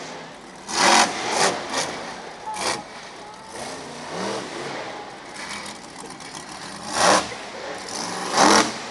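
Monster truck engine revving in short, loud bursts: several in the first three seconds, then two more near the end, over a steady background.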